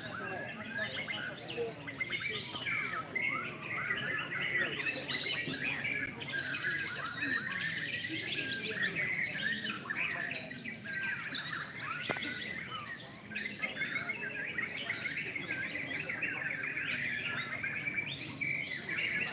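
Many caged songbirds singing at once, a dense overlapping chorus of chirps, trills and whistles with no pause.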